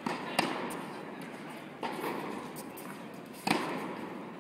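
Tennis rally on an indoor hard court: sharp pops of the ball struck by rackets and bouncing, about every second and a half, each echoing through the hall. The loudest pop comes about three and a half seconds in, from the near player's forehand.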